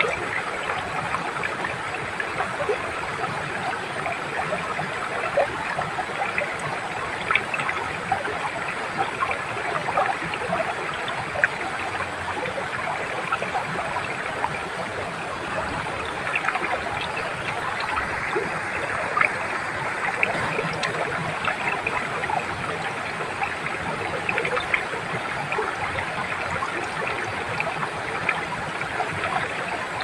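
Shallow rocky stream and a small waterfall: water rushing steadily over stones, full of small splashes and gurgles.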